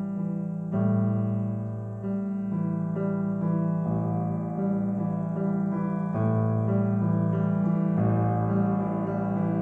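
Solo piano playing a slow piece of held chords, a new chord struck every second or two.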